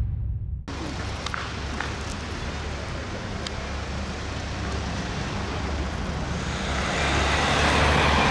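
Street traffic noise, with a car passing close by near the end, its tyre and engine noise swelling louder.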